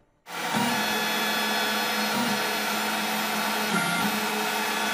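Snapmaker 2.0 3D printer printing, its stepper motors loud and unsilenced, giving a steady mechanical whine of several tones that bend briefly in pitch a few times as the print head changes moves. It is the noise of stepper motors run without silent stepper drivers.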